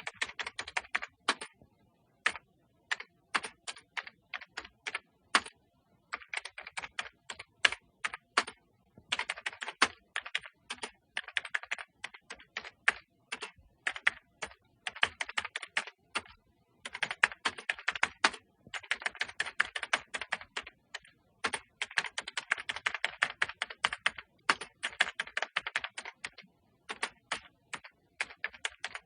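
Typing on a computer keyboard: quick runs of key clicks broken by short pauses, with single keystrokes here and there.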